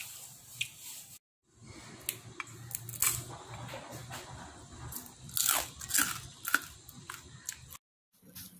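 Crunching bites and chewing of air-fried dried Alaska pollock, its bones roasted crisp, in irregular crackles with two short silent gaps, one about a second in and one near the end.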